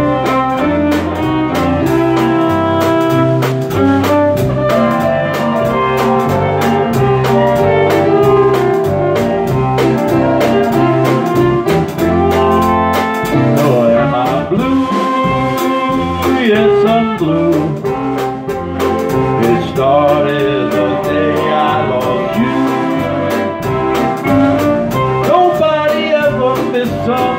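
Live band playing the instrumental intro of a country song, with electric guitar over a steady rhythm.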